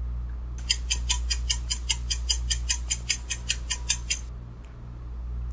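Countdown-timer sound effect: fast clock-like ticking, about five ticks a second for roughly three and a half seconds, then stopping, over a steady low hum.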